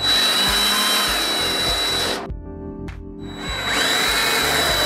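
DeWalt cordless drill-driver running twice, about two seconds each with a short pause between, driving screws through an aluminium rail into the edge of a panel.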